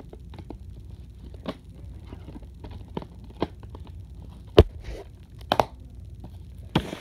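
Plastic DVD case and disc being handled close to the microphone: scattered clicks and taps, with a sharp knock about four and a half seconds in and two more around five and a half.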